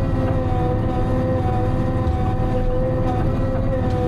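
Timberjack 608 harvester running under working load, heard from inside its cab: a steady low engine rumble with a steady whine over it.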